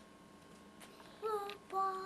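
A small child's high voice sings out two short held notes, one after the other, in the second half.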